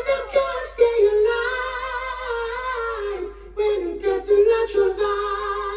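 A dubplate playing over the sound system: a high sung voice carrying the melody, holding one long note for about two seconds, about a second in.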